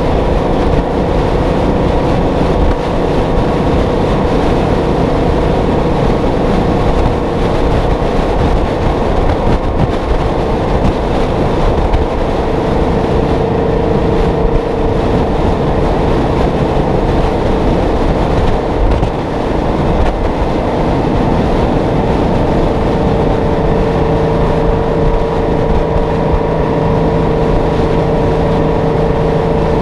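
Kenworth W900A's Detroit Diesel 12V71 two-stroke V12 pulling steadily at highway cruise, heard from above the cab between the exhaust stacks. A steady tone rides over the engine, wind and road noise.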